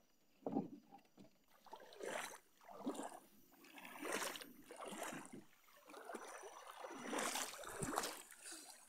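Water splashing and sloshing in irregular bursts, about once a second, beside a wooden boat.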